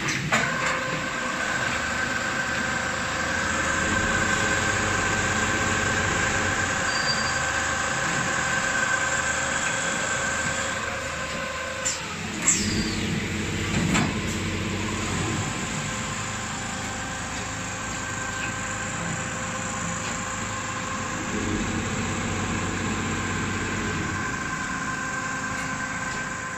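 Industrial quilting line's automatic panel cutter running: steady electric-motor whine over mechanical running noise. About halfway through, the whine drops away with a few sharp knocks and clatters, then the machine noise carries on with the whine fainter.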